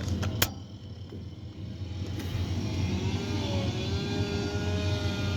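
Two sharp clicks, then the steady low hum of machinery, joined about halfway in by whining tones that slowly rise in pitch: a tower crane's electric drive motors starting to move.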